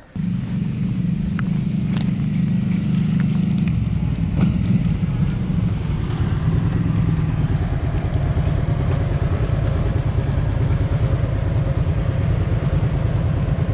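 A motor vehicle engine running steadily, heard from on or in the moving vehicle, with a shift in its low note about four seconds in.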